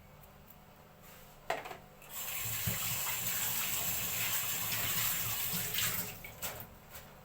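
A knock, then a kitchen tap running steadily for about four seconds before it is shut off, followed by a few small clicks.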